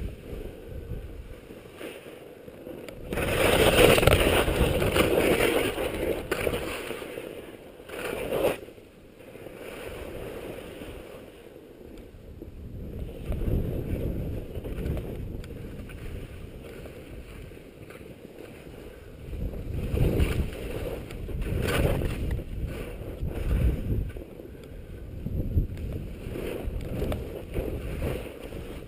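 Skis scraping and hissing over snow through a series of turns, with wind rumbling on the microphone. It grows louder in stretches, loudest a few seconds in and again in several surges in the second half.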